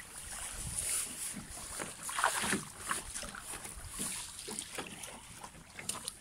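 Small waves lapping and sloshing irregularly against shoreline rocks in shallow water, with a slightly louder wash about two seconds in.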